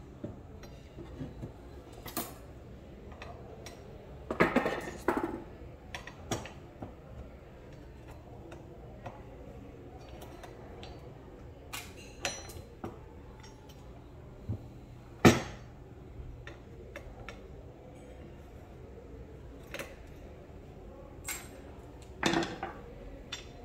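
Metal hand tools and air-rifle parts clinking and knocking against each other and the wooden table as the rifle is taken apart: scattered clicks and clanks, with a brief cluster about four to five seconds in, the loudest single clank about fifteen seconds in, and another cluster near the end.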